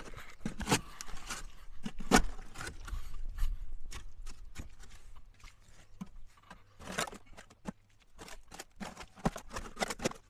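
A series of irregular knocks, clicks and scrapes, with a faint low hum between about two and eight seconds in.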